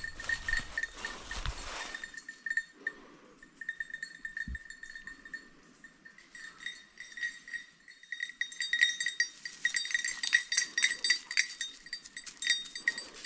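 A small metal bell jingling in quick, uneven strikes, faint at first and growing louder and busier from about eight seconds in.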